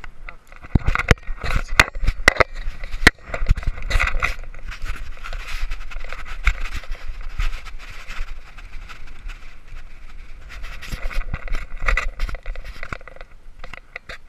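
Handling noise on a handheld camera's microphone: scraping and rubbing against it, with many sharp knocks, densest in the first few seconds and again near the end.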